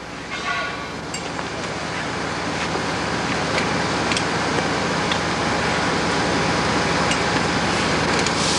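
Engine running steadily with a loud rushing noise, swelling over the first few seconds and then holding level.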